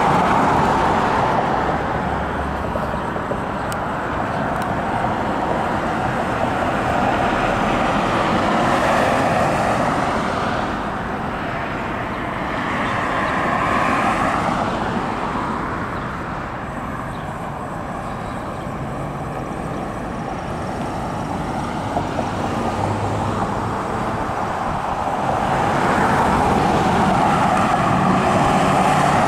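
Road traffic: cars and other vehicles passing one after another, their tyre and engine noise swelling and fading as each goes by, loudest near the start, about fourteen seconds in and near the end.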